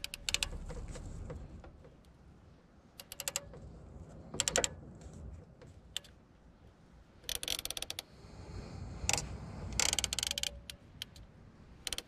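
Ratcheting PEX clamp tool clicking in short runs of rapid clicks, about seven times, as it crimps clamps onto a rubber AC hose over a compression fitting.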